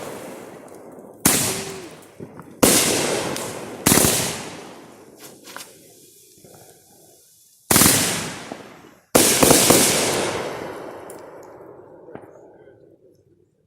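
Fireworks going off: five sharp bangs, three in quick succession and then two more after a pause, each fading away in a long echoing tail, the last dying out over about three seconds.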